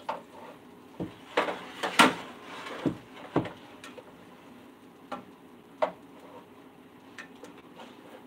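Spatula and skillet knocking and clattering on an electric stovetop as grilled cheese sandwiches are pushed around the pan. A cluster of sharp knocks comes in the first few seconds, the loudest about two seconds in, followed by fainter scattered taps.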